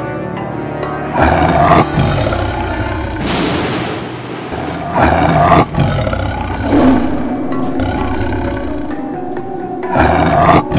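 Big-cat roar sound effects, three short loud roars about four to five seconds apart, over dramatic background music.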